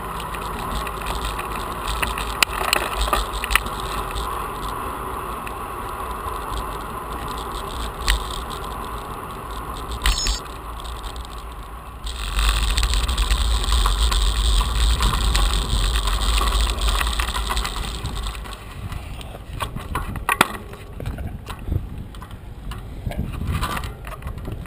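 Road bike riding on a paved path: wind rushing over a handlebar-mounted camera's microphone with tyre and road noise and occasional sharp clicks and rattles from bumps. The wind rush gets much louder about halfway through, then drops off for the last few seconds, when clicks and knocks come more often.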